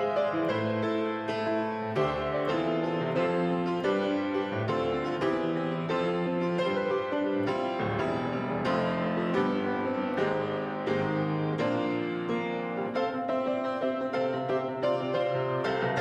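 Grand piano played solo: a continuous flow of struck notes and chords at an even, moderate level.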